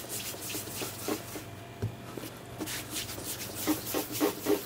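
Hands rolling and pressing a small ball of brioche dough on a wooden worktop: soft rubbing with a scatter of light, irregular taps.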